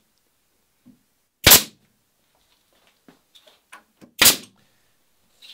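Pneumatic nail gun firing two sharp shots about three seconds apart, driving nails to tack wooden ribband battens to the boat's molds, with faint clicks of handling between the shots.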